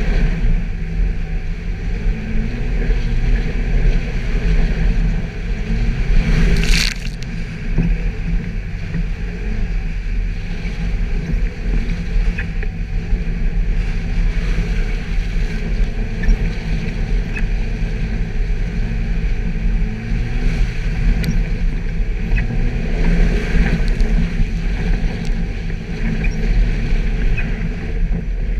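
Suzuki Jimny's engine running steadily at low revs while driving off-road. A brief loud rushing noise about seven seconds in.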